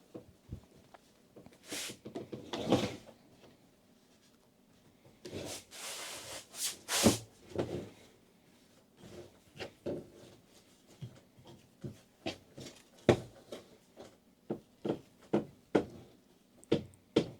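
Kitchen handling noises: a few short rustling, scraping passes, then from about nine seconds in a run of light taps and knocks, one or two a second.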